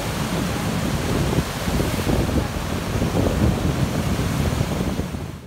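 Ocean surf breaking and washing over rocks, a dense rushing wash, with wind rumbling on the microphone.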